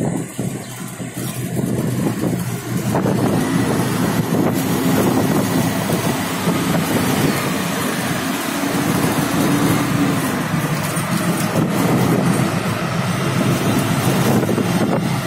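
Steady engine, tyre and wind noise from riding in an open-sided auto-rickshaw through city traffic.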